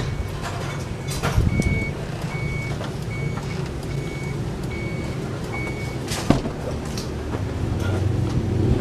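A vehicle engine running with a steady low rumble, and a short electronic beep repeating about twice a second for a few seconds. Two sharp metallic knocks, one early and one near the end of the beeping.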